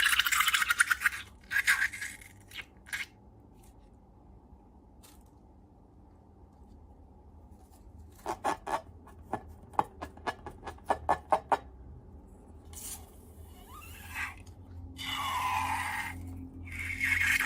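Slime being handled by hand: a crackly squishing at first, then a quick run of sharp clicks and pops about halfway through, and a rough scraping near the end.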